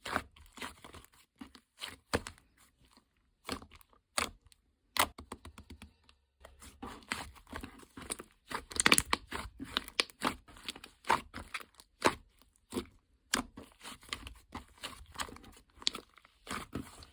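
Paper and plastic sticker pieces being handled up close: irregular crinkling, rustling and tearing crackles, densest about halfway through.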